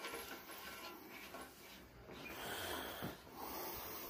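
A person breathing close to the microphone, with two long breaths in the second half and a click about three seconds in.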